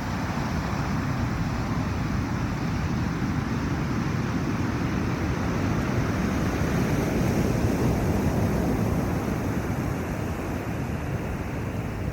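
Ocean surf washing onto the beach, a continuous rushing that swells a little about two-thirds of the way through, with some wind on the microphone.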